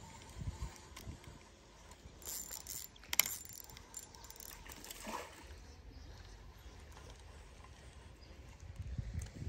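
Spinning reel being cranked to retrieve line, its gears whirring and ticking faintly, with a sharp click about three seconds in.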